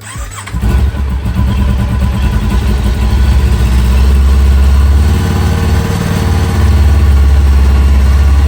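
2021 Kawasaki Ninja 400's 399 cc parallel-twin engine starting up and catching almost at once, then idling steadily. This is its first start after sitting a long time, on a fresh battery, and it runs pretty good.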